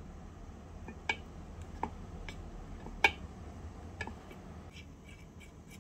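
A tiny metal spoon clinking and scraping against a miniature steel pan: a handful of sharp clicks, the loudest about three seconds in, with light scraping between.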